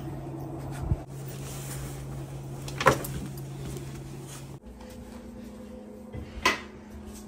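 A few short knocks and rustles from clothes being picked up and handled, three in all, over a steady low room hum that shifts to a higher hum about halfway through.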